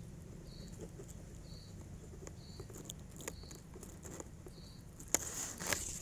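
Light rustling and crackling of dry nest grass and leaves as the phone is handled close to the nest, with two louder rustles near the end as it pulls away through the foliage. A short high chirp repeats about once a second in the background.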